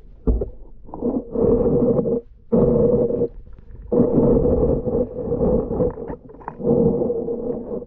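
Muffled underwater noise picked up by a submerged camera: four loud rushing surges, each about one to two seconds long, with short quieter gaps between them.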